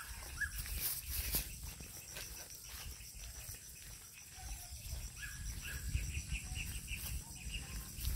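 Evening countryside ambience: small birds chirping, with a quick run of chirps about two-thirds of the way through, over a thin steady high insect drone. A low uneven rumble comes from a handheld phone being carried on foot.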